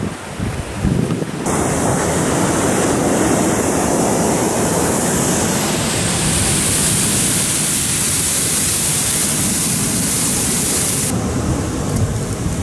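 Alamere Falls, a waterfall pouring onto a beach, rushing as a loud, even hiss. It cuts in abruptly about a second and a half in and stops just as suddenly near the end. Before and after it, gusty wind buffets the microphone.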